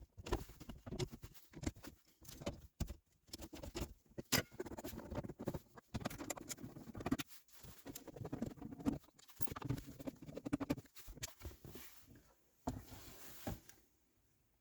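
Hand tools and plastic car interior trim being handled: irregular clicks, taps and rattles with some scuffing, stopping shortly before the end.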